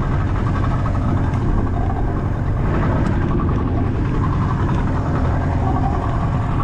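A small fishing boat's engine running steadily under way, with wind and water noise over it.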